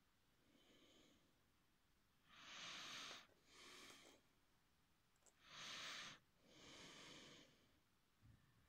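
Close breathing: two slow breaths, each a louder rush of air followed by a softer one, with a small click in between.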